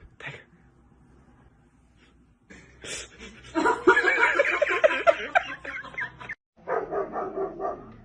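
A dog yipping and barking in a quick run of short, high calls starting a few seconds in, breaking off briefly, then a shorter second run.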